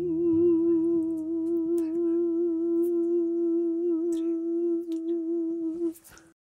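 Background hymn music: a voice holds one long note with vibrato over soft sustained accompaniment, then stops suddenly about six seconds in.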